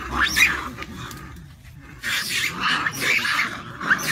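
A group of macaques screaming in shrill, broken bursts with short rising squeals, the noise of a troop fight. There is a quieter stretch about a second in before the screaming picks up again.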